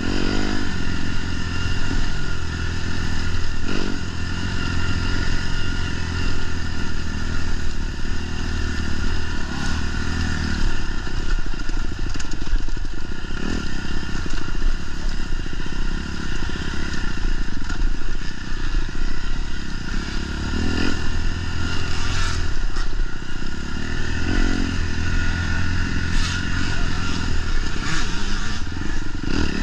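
A racing engine running hard throughout, its revs rising and falling, with scraping and clattering knocks now and then.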